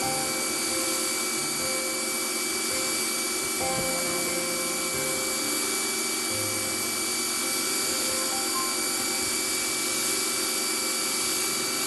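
Pressure washer running steadily, spraying water through a wide 40-degree nozzle: an even hiss with a thin high whine held at a constant pitch.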